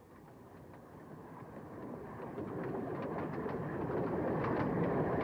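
Streamlined electric streetcar approaching along the rails, its rumble growing steadily louder, with wheels clicking over the track from about halfway in.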